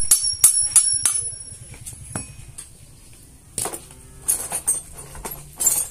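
Hammer striking small steel exhaust parts: about three sharp, ringing metal strikes a second for the first second, one more strike about two seconds in, then scattered lighter clinks of steel pieces being handled.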